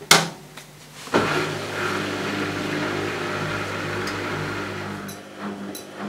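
A click as the start button is pressed on a Zanussi Jet System ZJ1217 front-loading washing machine. About a second later the machine starts up with a steady motor hum as the drum begins turning the damp washing for a spin-only cycle. Near the end the hum weakens and pulses roughly every two-thirds of a second as the drum tumbles the load.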